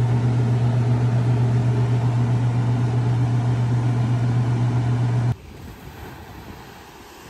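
A kitchen appliance's motor running with a steady low hum and a rushing of air, cutting off suddenly a little over five seconds in. After it come faint wind and surf.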